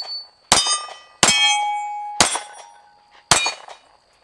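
Taurus G3c 9mm pistol fired four times at an even pace, about one shot a second. Each shot is followed by the ringing of a struck steel plate target, one ring lasting nearly a second.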